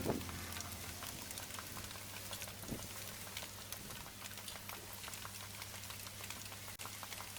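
Water trickling and pattering, like a small stream falling over stones, over a faint steady low hum.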